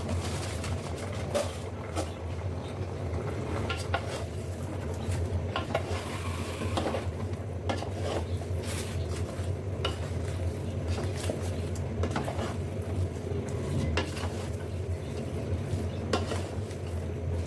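A spoon stirring beef in a metal pot, with irregular scrapes and knocks against the pot over a low steady hum. The meat is cooking in its own juices without added oil, with a light sizzle.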